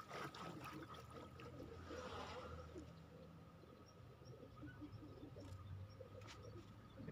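Quiet outdoor ambience: a faint steady high tone, with a few faint high chirps and a couple of soft clicks near the end.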